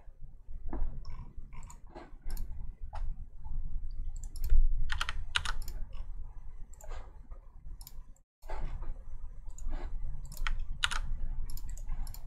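Typing on a computer keyboard: irregular keystrokes and clicks in short runs, over a steady low hum.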